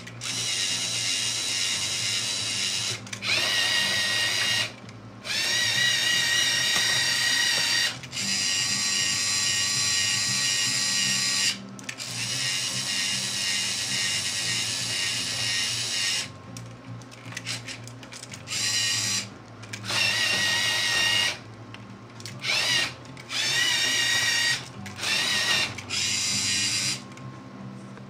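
LEGO Mindstorms EV3 motors driving an XY gantry through its gearing: a whine that runs for a few seconds at a time and starts and stops abruptly, with short pauses between moves. The runs are longer in the first half and become short, quick bursts later on.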